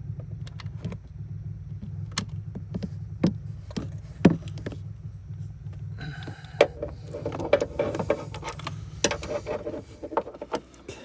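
Metal tool clinks and knocks, irregular and getting busier in the second half, as a socket is fished around the engine for a bolt it is not yet landing on, with a steady low hum underneath that fades near the end.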